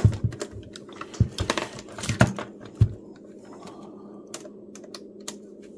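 Clicks and knocks of a handheld multimeter being picked up and its test probes placed on a bench power supply's output terminals, in a quick run over the first three seconds. After that only a steady low hum remains.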